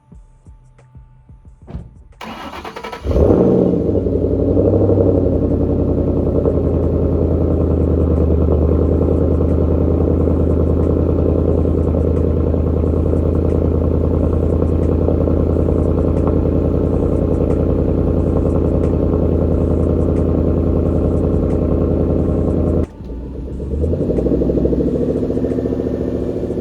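Ford Mustang GT's Coyote 5.0 V8 being started: the starter cranks briefly about two seconds in, then the engine catches and runs loud and steady at idle. Near the end the sound drops suddenly and the engine is heard at a lower level, swelling and easing.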